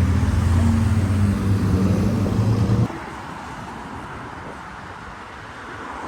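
Steady low hum of a nearby idling vehicle engine, which cuts off abruptly about three seconds in, leaving fainter road traffic noise.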